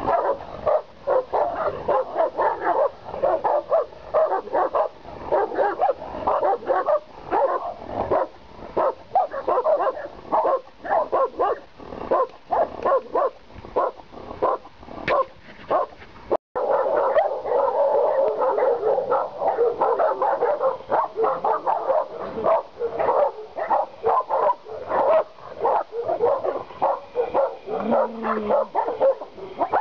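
Caucasian Shepherd Dogs barking over and over, several barks a second, with hardly a pause.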